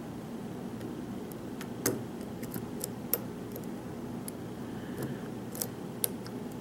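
Small, sharp metallic clicks and ticks of a lock pick and tension wrench working the pins inside a pin-tumbler lock, scattered and irregular, the loudest about two and three seconds in, over a steady low hum.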